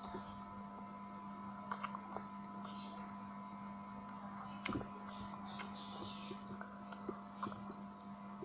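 Close-up eating sounds: irregular chewing, lip smacks and small mouth clicks from someone eating soy-sauce chicken by hand, over a steady electrical hum.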